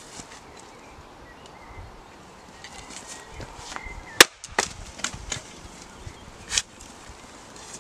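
An axe splitting a log on a chopping block: one sharp crack about four seconds in as the blade strikes and splits the wood, then a few lighter knocks.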